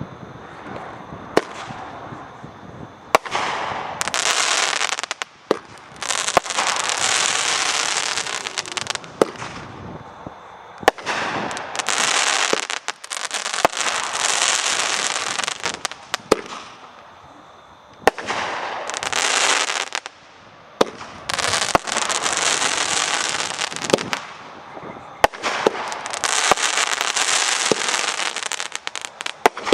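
A 500-gram consumer fireworks cake firing shot after shot, every one to three seconds: each launch thump is followed by a second or more of dense crackling from the crackling and crossette breaks.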